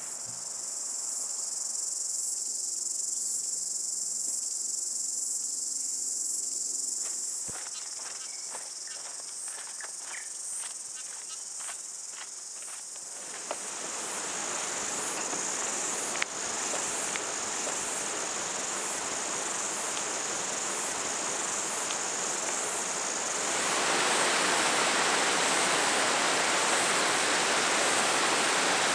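A steady, high-pitched chorus of insects with a pulsing edge, joined by a run of light clicks about a third of the way in. From about halfway a rushing-water noise rises beneath it, and near the end the sound cuts to louder rushing water.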